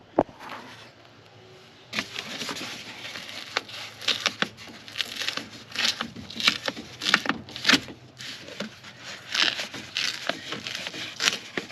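Plastic door vapor barrier being pulled off its black butyl adhesive strip, crinkling and crackling in irregular bursts from about two seconds in.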